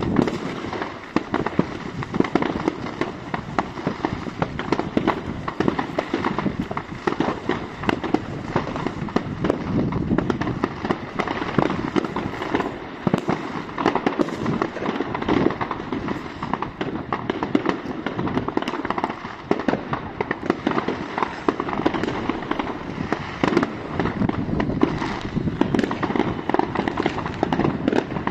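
Fireworks going off all around in a dense, continuous barrage: overlapping bangs and crackling with no pause.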